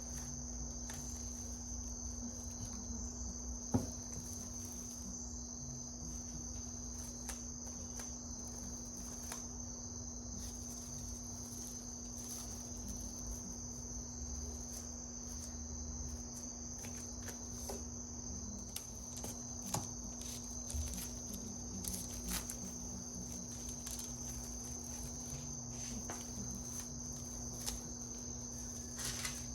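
A steady high-pitched whine with a steady low hum beneath it, and a few faint clicks and taps scattered through, the sharpest about four seconds in.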